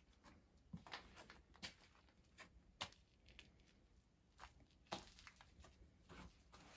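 Near silence with faint, irregular scuffs and clicks from someone moving about while filming, about eight in all.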